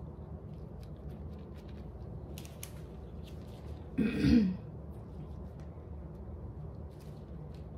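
A woman clears her throat once, briefly, about four seconds in. Around it there are only a few faint clicks.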